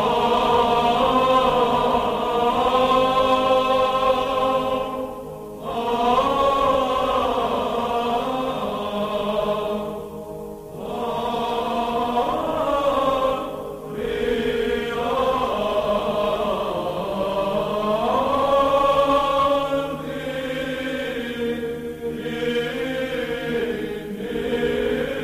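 Background music of Orthodox-style liturgical chant: voices sing slow, long-held phrases over a steady drone note, with short breaks between phrases.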